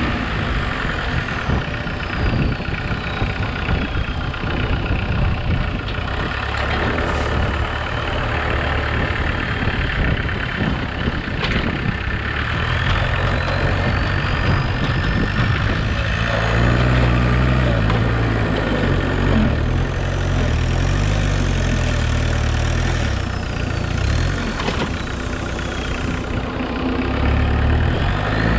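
Homemade 4x4 tractor's engine running while its front loader is worked, with a whine that rises and falls in pitch. The engine note grows heavier and louder about halfway through as the bucket digs into and lifts a load of soil.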